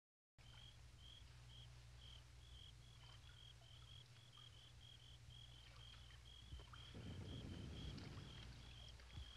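Faint outdoor ambience: a steady run of short, high chirps about three a second over a low hum, with a low rustling swell about seven seconds in.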